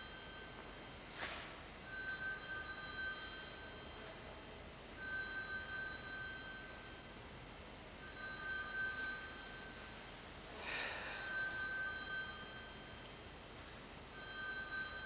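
A ringing tone made of several pitches, sounding for about a second and a half and repeating about every three seconds. Twice a short swishing noise cuts in, about a second in and near eleven seconds.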